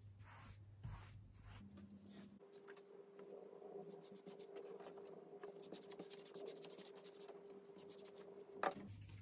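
Soft scratchy strokes of a wide mizubake brush wetting sheets of printmaking paper, over a faint steady hum, with one brief tap near the end.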